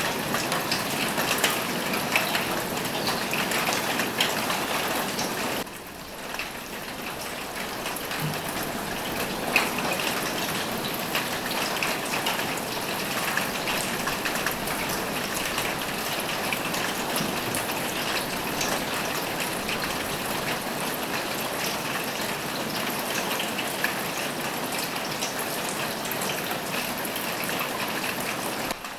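Steady rain falling on a roof, a dense patter of many individual drops. The rain briefly softens about six seconds in, then comes back as before.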